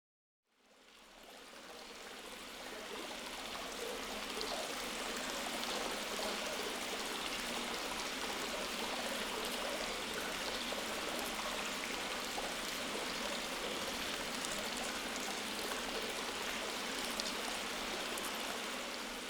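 Steady rushing water, fading in from silence over the first few seconds, then holding even.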